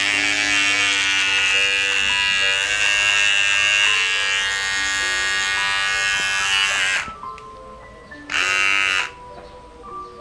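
GSE GS-007 cordless mini hair clipper running against beard stubble with a steady high-pitched buzz. It cuts out about seven seconds in and buzzes again for about a second.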